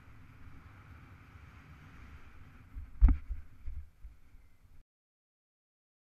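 Wind rushing over an action camera's microphone in flight, a steady low rumble with a hiss above it. A loud thump about three seconds in is followed by a few smaller ones. The sound then cuts off to dead silence.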